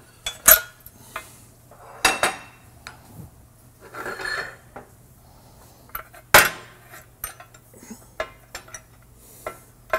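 Steel parts knocking and clinking as a control arm, steel press blocks and a press fixture are set in place on a shop press bed, with a brief scrape about four seconds in and the loudest clank a little past six seconds. A faint steady hum runs underneath.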